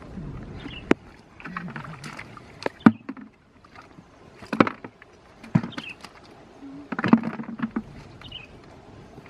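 Water splashing and sloshing during traditional net fishing, with about five sharp splashes or knocks spaced irregularly a second or two apart.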